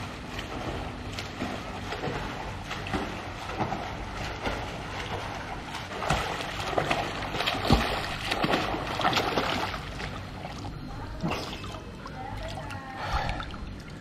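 Pool water splashing and sloshing with a swimmer's strokes, irregular and a little louder from about six to ten seconds in.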